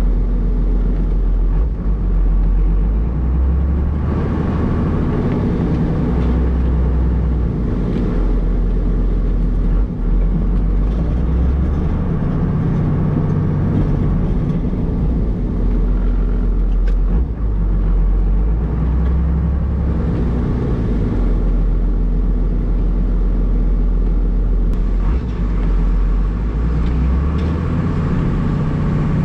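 1994 Dodge Ram's 5.9-litre Cummins turbo-diesel inline-six running, heard from inside the cab. Its low drone rises and falls every few seconds as the truck is driven while plowing snow.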